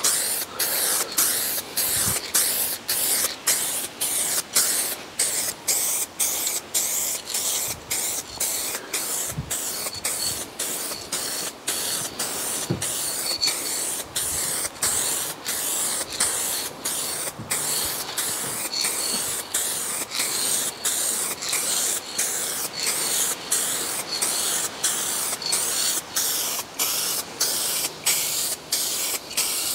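Aerosol can spraying a light dust coat of car base coat paint: a hiss broken by brief gaps about twice a second.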